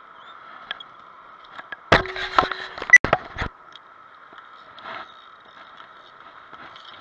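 A burst of knocks, clatter and scraping close to the microphone, lasting about a second and a half from about two seconds in, as the camera is handled and set back down on the rocks. A faint steady hum runs under it.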